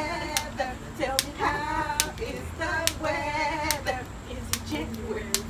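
A jump rope slapping a concrete driveway at an even pace, seven strikes a little under a second apart, while voices chant and sing along.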